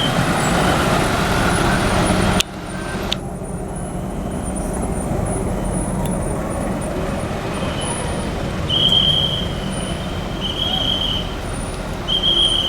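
Bus engine and road noise, loud for the first couple of seconds and then dropping off abruptly. A lower, steady traffic rumble follows, with three short high whistle-like tones in the last few seconds.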